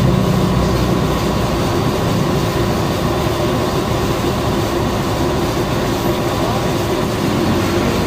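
Air compressor running, loud and steady with a fast, even mechanical rhythm.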